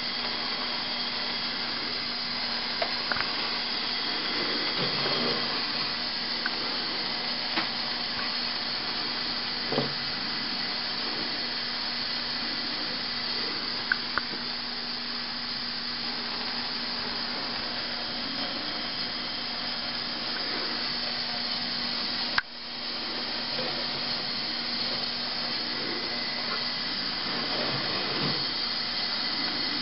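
Akron Lamp Co. Diamond gasoline pressure lamp burning: a steady hissing rush from the pressurised fuel and lit mantles, with a few small ticks and pops. Its generator and fuel pickup tube are due for cleaning, in the owner's view, after years unused.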